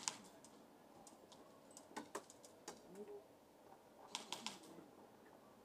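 Airsoft gunfire across the field: short, sharp clicks coming singly and in quick bursts, a pair about two seconds in and a rapid run of about four near four seconds, over a faint hiss.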